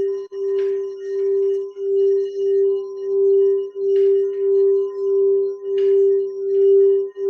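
Quartz crystal singing bowl tuned to G, rimmed with a wand so that it sings one steady ringing tone that swells and ebbs in a regular pulse. A few brief high scratchy sounds cut in over it.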